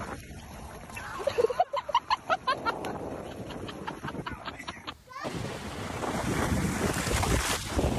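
Water splashing at a shoreline, with a quick run of short high vocal sounds about a second and a half in. After about five seconds it changes to steady wind noise buffeting the microphone.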